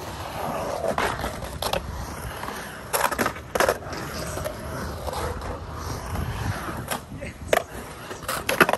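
Skateboard wheels rolling and carving on the concrete of a pool bowl with a steady rumble, broken by several sharp clacks of the board against the lip and coping, the loudest about three seconds in and again near the end.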